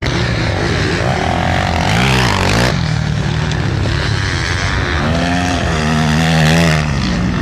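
Motocross bike engines revving on the track, the pitch swooping down and up about two seconds in. About five seconds in, a bike accelerates close by, its pitch climbing and then holding high, loudest near the end.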